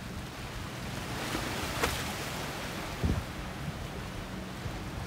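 Choppy inlet water washing and splashing against shoreline rocks, with the low steady drone of a motor boat's engines underneath; one sharp splash about two seconds in and a low thump about a second later.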